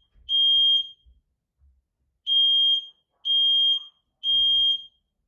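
Smoke alarm sounding its high, piercing evacuation pattern during a test. One beep, a pause, then three beeps about a second apart, each lasting about half a second.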